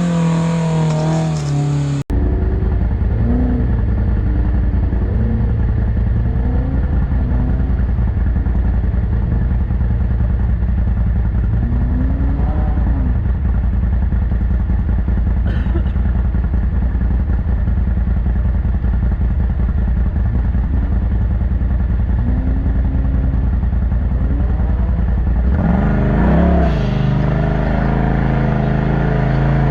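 A side-by-side UTV's engine running hard, its note rising and falling as the throttle is worked. The sound cuts off abruptly about two seconds in and resumes at once, and the revving swings more sharply near the end.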